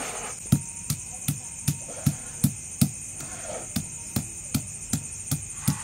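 A stone pestle knocking down on ginger slices on a flat grinding stone (shil-nora), crushing them in an even beat of about two and a half strikes a second. Crickets chirr steadily behind it.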